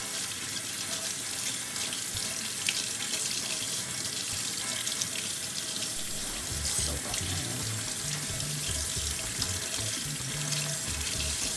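Kitchen faucet running steadily, its stream of water splashing into a stainless-steel sink as a silver-plated brass mouthpiece is rinsed and rubbed under it.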